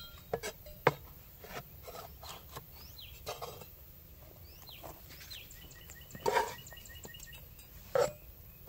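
Rustling of a beekeeping suit and scattered knocks of wooden top bars as an opened Layens hive is worked by hand, with a sharp knock about a second in. Birds chirp in the background, including a quick run of repeated chirps about six seconds in.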